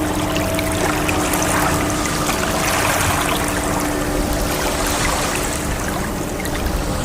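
Ocean waves washing in a steady rush that swells gently about halfway through, with faint held tones of soft background music underneath.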